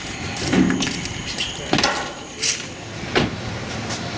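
Found items being loaded into a car: about four knocks and clunks spread over a few seconds, with rustling in between.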